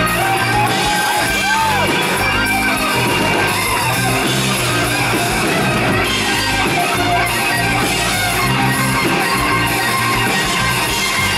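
Live rock band playing, with electric guitar to the fore.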